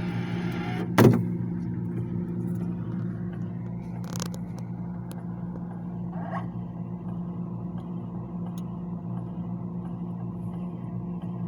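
Refrigerator running with a steady low hum, with a sharp knock about a second in and a couple of faint clicks later.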